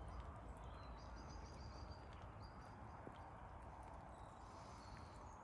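Quiet lakeside ambience: a low, steady rumble of wind on the microphone, with faint, thin, high bird calls now and then.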